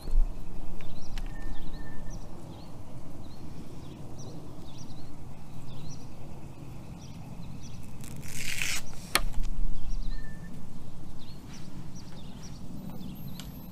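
Rhythmic rubbing of a wet sanding pad worked back and forth over a plastic motorcycle windscreen, with a short hiss about eight seconds in and a sharp click just after. Small birds chirp in the background.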